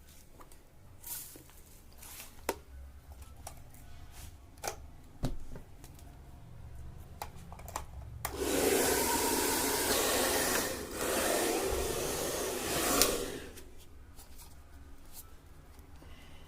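A few scattered handling clicks, then a 2000-watt Urban Nova hair dryer runs with a loud, steady rush of air for about five seconds. The sound dips briefly partway through and ends with a click as the dryer is switched off.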